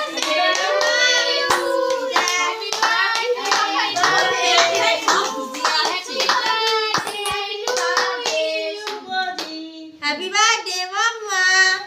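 Several voices singing together with hands clapping along in a steady rhythm, loud and close in a small room.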